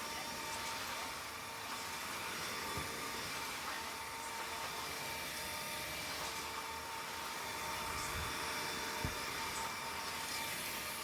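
Steady whir of a small appliance motor with a faint steady hum in it, and a couple of soft thumps, the clearest about nine seconds in.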